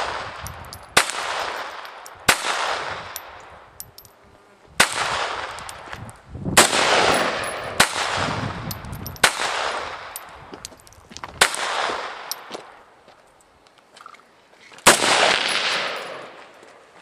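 Rifle fired about eight times in slow, uneven succession. Each shot is followed by a long rolling echo that fades over a second or more.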